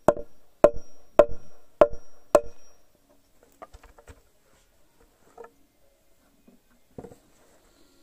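Claw hammer driving a nail into a wooden board: five sharp blows about 0.6 seconds apart, each with a short ring, then a few faint knocks and one lighter knock near the end.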